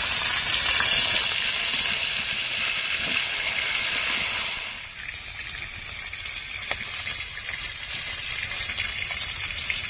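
Pieces of rohu fish frying in hot oil in a pan: a steady sizzle with a few crackles, which drops in level about halfway through.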